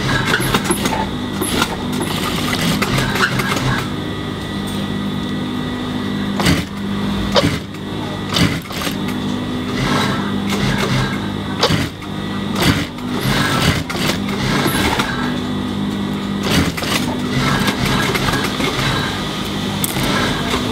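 Juki industrial sewing machine running as a T-shirt collar support is stitched: a steady motor hum, with stitching that comes and goes and scattered sharp clicks.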